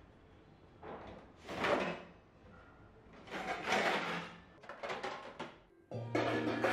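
Stainless steel plates and pots being lifted out of a plastic dish rack, metal sliding and scraping against metal in three short bursts. Background music starts about six seconds in.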